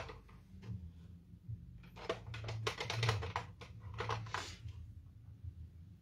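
Hands handling craft supplies on a desk: a run of light clicks and rustles from about two seconds in to about four and a half, over a low steady hum.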